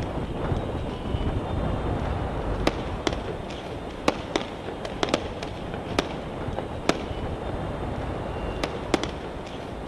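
Distant gunshots: about ten sharp cracks fired at irregular intervals, some in quick pairs, over a steady low rumble of background noise.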